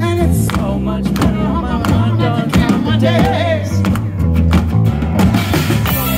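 Live band playing a rock song: strummed acoustic guitar, bass and drums, with a man singing. The cymbals grow louder near the end.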